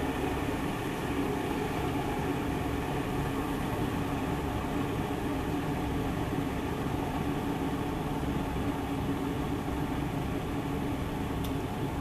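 Defort DEK-317-F glass electric kettle heating its water with a steady hum and rush: the heating element has switched back on to hold the set brewing temperature.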